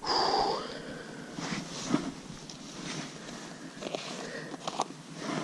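Handling noises of a small plastic bait box with a perforated lid: a louder rustle at the start, then several short sharp plastic clicks and rubbing as it is gripped and worked open.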